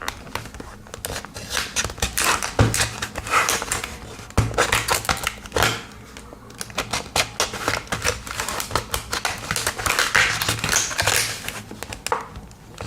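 Plastic blister packaging being pried and cut open with a Swiss Army knife awl: a string of irregular sharp clicks, snaps and crackles of stiff plastic.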